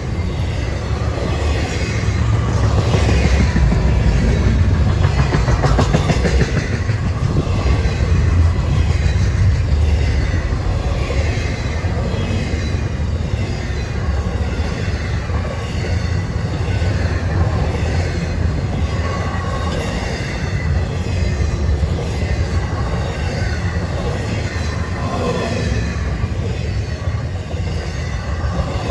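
A train rolling past: a steady, loud low rumble of railcars on the rails.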